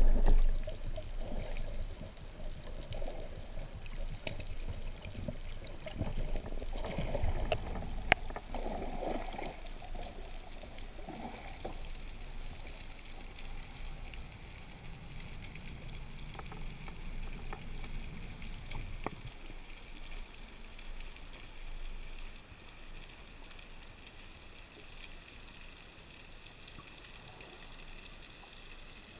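Underwater ambience recorded underwater: muffled water swishing with a few sharp clicks, louder and more uneven for the first twenty seconds or so, then settling to a quieter steady hiss.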